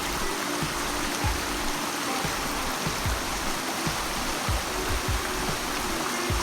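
Steady rushing water, with faint background music and irregular low thumps underneath.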